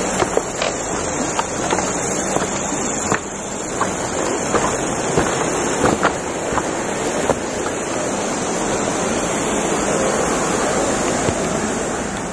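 Steady rushing of heavy rain and a swollen river in full flow, with scattered sharp taps through it and a constant high-pitched hum above.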